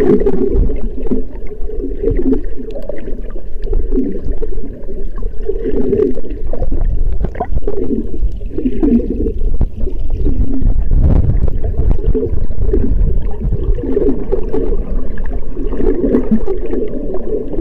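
Muffled underwater sound picked up by a camera held below the surface: water moving and gurgling around it, with a low rumble.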